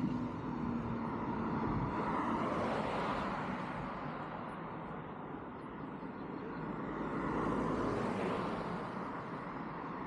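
Street traffic: two vehicles pass one after the other, each swelling up and fading away, the first about two to three seconds in and the second around eight seconds in.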